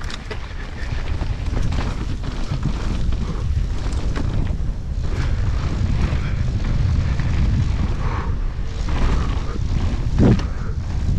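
Wind rumbling on the action-camera microphone and the rattle and roll of a downhill mountain bike descending a dirt trail at speed, building over the first couple of seconds. A louder thump about ten seconds in, as from the bike hitting a bump or landing.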